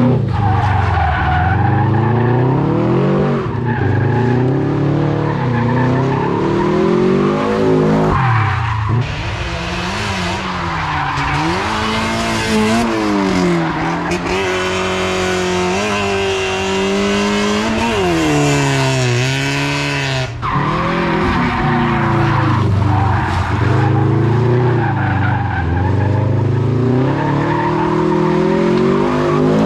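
A car drifting: the engine revs rise and fall over and over as the driver works the throttle, with tyres squealing as they break loose.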